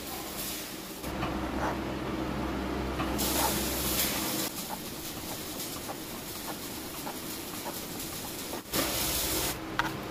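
Metal shaper running steadily, its HSS tool planing module 1.5 rack teeth into a steel drill-press quill sleeve: motor hum with a hissy cutting noise and light ticks about twice a second. A short, louder rush of noise comes near the end.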